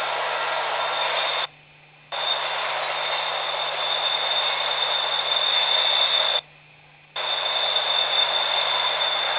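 Freight train cars rolling past as a steady rushing noise of wheels on rail, played back through a camcorder's small speaker with a steady high whine over it. The sound cuts out abruptly twice, for about half a second each time.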